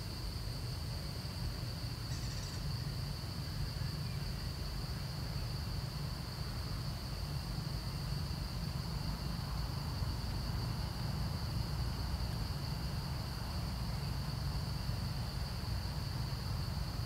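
Insects droning steadily at a high pitch, over a low steady rumble.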